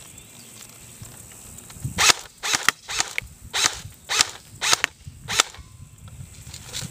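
Airsoft M16 rifle firing a string of about nine sharp shots, unevenly spaced, over roughly three and a half seconds, starting about two seconds in.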